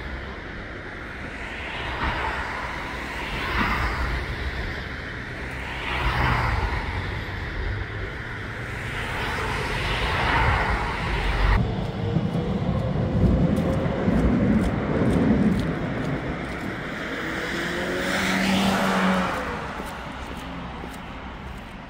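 City street traffic: several vehicles pass one after another, each rising and fading, with an engine's pitch rising and falling about midway through.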